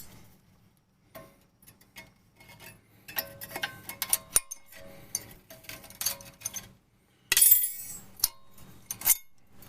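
Metal clinks and clicks as the old steel brake pad slide clips are pried out of the caliper bracket with a screwdriver. A short, harsh scraping hiss comes about seven seconds in.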